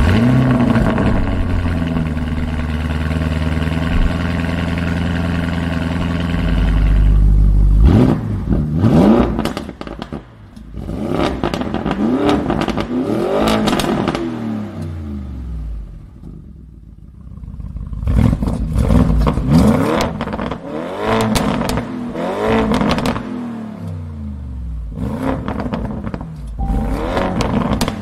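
Lamborghini Urus twin-turbo V8 idling steadily, then revved in a series of blips from about eight seconds in, the pitch climbing and falling with each. A short lull comes midway before more revs.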